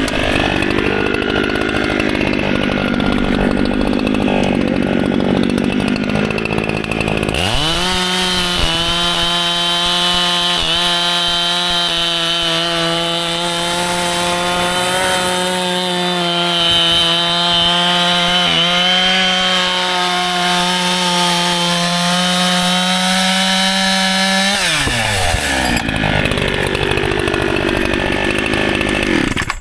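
Echo CS-7310P 70cc-class chainsaw running, first at a lower, uneven engine speed, then revving sharply about seven seconds in to a high, steady pitch held for some seventeen seconds while it cuts wood, before dropping back near the end. The saw is new and being broken in.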